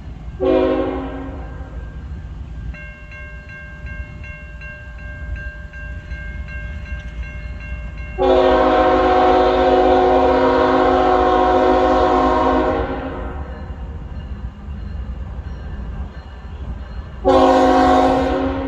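Diesel locomotive air horn sounding a short blast, then a long blast of about four and a half seconds, then another short blast near the end, over a steady low rumble of diesel engines. Between the first blast and the long one, a locomotive bell rings about twice a second.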